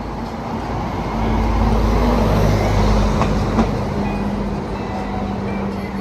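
Loud, steady rumble of a moving vehicle, with a steady hum running under it.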